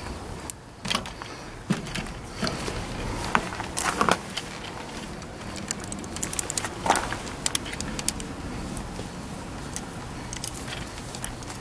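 Ratcheting flaring tool being worked on copper refrigerant tubing to form a 45-degree flare: irregular metallic clicks and short scrapes.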